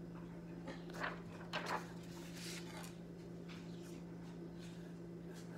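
Soft rustles and light taps of a paper worksheet and a sandpaper numeral card being handled on a table, mostly in the first couple of seconds, over a steady low hum.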